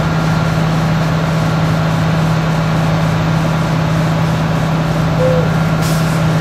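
Heavy diesel engine of fire apparatus running steadily at the fire scene, a constant low drone.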